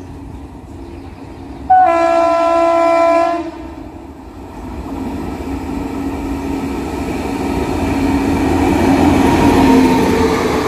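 Electric locomotive's horn sounds one blast of just under two seconds. A passenger express then approaches and runs past, its rumble and wheel clatter growing steadily louder.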